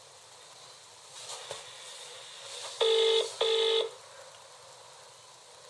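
Telephone ringback tone from a mobile phone's loudspeaker while it calls the Avire Memcom lift alarm: one double "ring-ring" about three seconds in, two short equal beeps close together, which shows the line is ringing and has not yet been answered.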